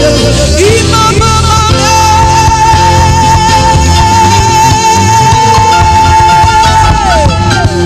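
Live worship band music, with a long held note that wavers in pitch from about a second in and slides down near the end.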